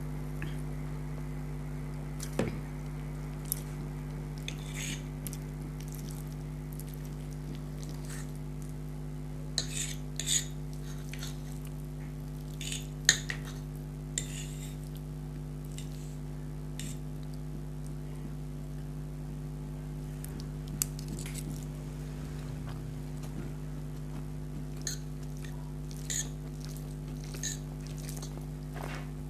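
Eating instant noodles: scattered short clicks and clinks of a utensil against a dish, with mouth sounds of eating, coming in clusters. A steady low hum runs underneath.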